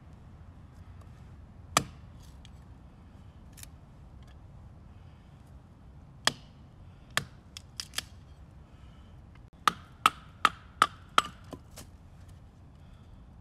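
Large Wenger Wolverine bushcraft knife chopping into wood in sharp, separate strikes. There is one strike about two seconds in, a few scattered strikes around six to eight seconds, then a quick run of strikes at about two or three a second near the end, several with a brief metallic ring.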